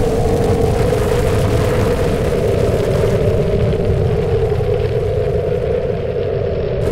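Steady, loud rumble with a sustained drone running through it: a sound effect for a spacecraft capsule's fiery entry into the atmosphere.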